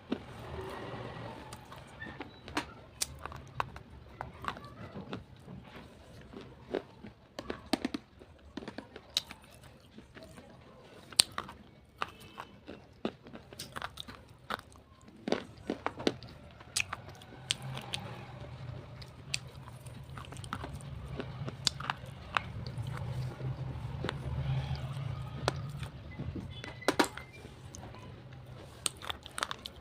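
Slate pencils being bitten and chewed: sharp, irregular crunches and snaps, several a second at times, over a low steady hum that grows louder in the second half.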